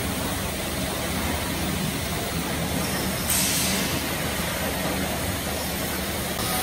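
Oxy-fuel cutting torch hissing steadily as it burns through a large steel pipe. The hiss turns brighter and a little louder for about a second, some three seconds in.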